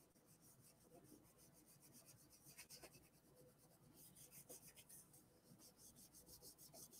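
Near silence, with faint scratching and rubbing of paper as a small glued collage piece is pressed and rubbed down onto a sketchbook page, a few soft scrapes standing out around the middle.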